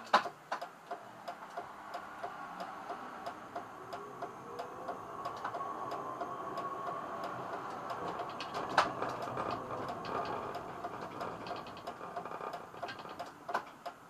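Steady, even ticking, about three ticks a second, in a tram's driver's cab, with a faint whine that rises in pitch as the tram pulls across the junction. A sharp knock sounds just after the start and again about nine seconds in.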